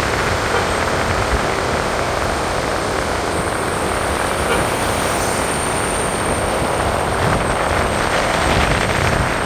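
Steady road noise of a car driving: tyres on the road and rushing wind, loud and even throughout.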